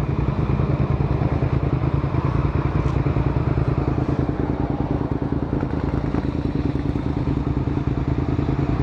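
Suzuki SV650S's V-twin engine running at a steady speed with an even pulsing beat and no revving.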